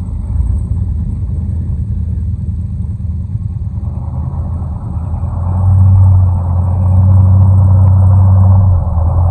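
Four-wheel-drive vehicle's engine running with a steady low drone, getting louder about five and a half seconds in and holding there.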